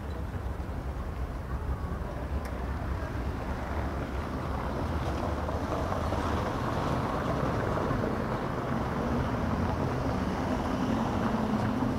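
Street traffic noise: a motor vehicle's engine running close by, growing louder through the second half.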